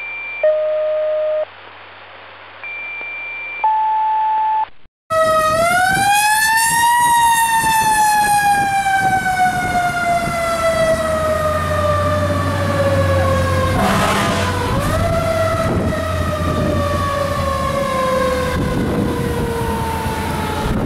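A series of steady fire-dispatch alert tones of several pitches, sounding narrow as over a radio. About five seconds in, a Federal Q2B mechanical siren on the KME pumper winds up for about two seconds, then coasts slowly down in pitch. Near two-thirds of the way through it is wound up again briefly, over a low engine rumble.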